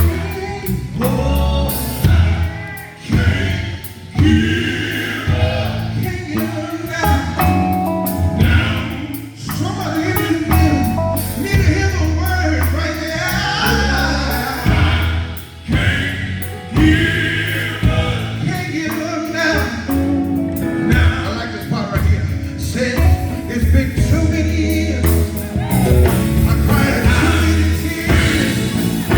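Gospel music: a vocal group singing over a band with a steady bass line and drums.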